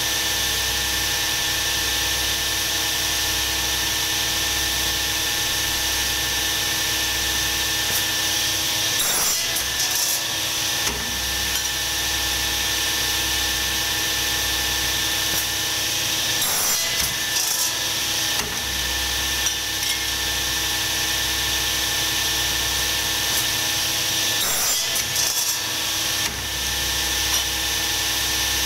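A bench-mounted workshop machine running steadily with a hum and hiss, with brief louder passes about a third, three-fifths and seven-eighths of the way through.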